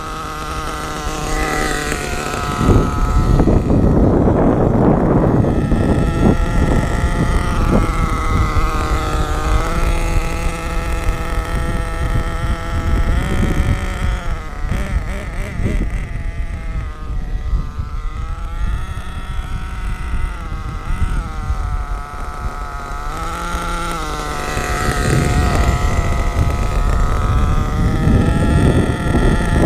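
HPI Savage X 4.6's 4.6cc Big Block two-stroke nitro engine running at low throttle on its break-in tank, set rich, its pitch rising and falling as the truck drives. There are louder, rougher stretches a few seconds in and near the end.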